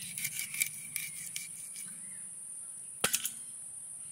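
Sharp clicks and taps, scattered in the first second or so and a quick cluster of three about three seconds in, over a steady high-pitched insect drone.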